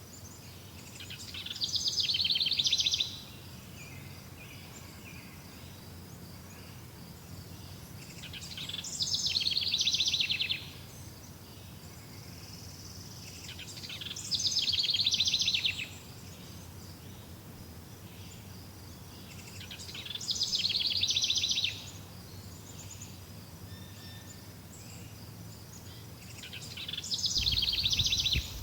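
A songbird singing the same song over and over, about every six seconds: each phrase is a fast, high trill about two seconds long that grows louder and stops abruptly. A faint steady high buzz, like insects, runs underneath.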